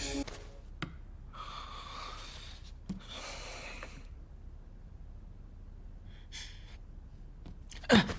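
A person's heavy breathing: three short breathy gasps of about a second each, with quiet gaps and a couple of faint clicks between them.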